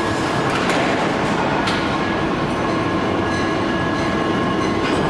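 Heavy forge-shop machinery running: a steady, loud rumble and drone with a few faint steady tones and no distinct hammer blows.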